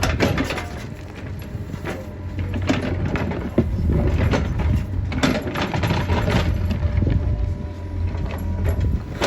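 Cat 432F2 backhoe loader's diesel engine running steadily, with scattered knocks and clanks from the machine's working equipment.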